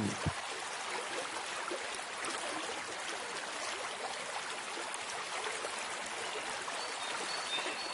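Steady rushing and trickling of a flowing stream, with a few faint high peeps near the end.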